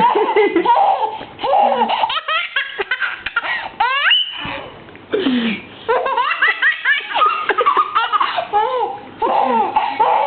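A four-and-a-half-month-old baby boy laughing hard in repeated bursts, with high rising squeals and a brief pause about halfway through.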